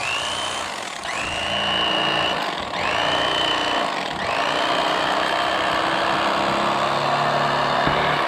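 Electric fillet knife cutting through a Spanish mackerel, switched on in short runs: four times its motor spins up with a quick rising whine and then runs steady. The last run is the longest and cuts off near the end.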